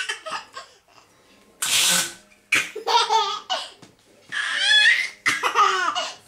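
A baby laughing in repeated high-pitched bursts of giggles, with a short breathy hiss about two seconds in.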